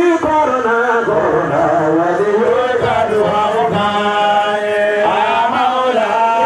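Men chanting an Islamic devotional song into microphones, amplified over a sound system, in long held notes that waver and slide in pitch.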